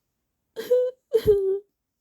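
Female voice crying: two short, high whimpering sobs, the second dropping slightly in pitch.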